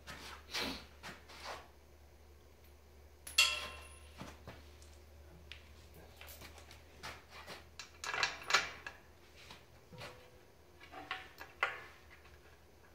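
Scattered light metal clinks and taps of bolts, nuts and washers being handled and fitted at the compressor pump's mounting feet; the loudest, about three and a half seconds in, rings briefly. A low steady hum runs underneath.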